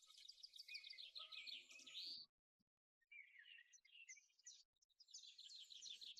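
Faint birds chirping in quick runs of high notes. The chirping cuts out abruptly about two seconds in and resumes about a second later.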